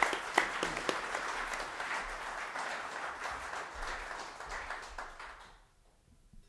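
Audience applauding, many hands clapping, dying away about five and a half seconds in.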